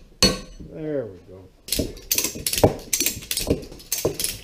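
A hammer strikes once on a drift set against the steel head of a John Deere loader's hydraulic lift cylinder. After a pause, from about halfway through, a quick, irregular run of metallic clicks and rattles from the cylinder parts.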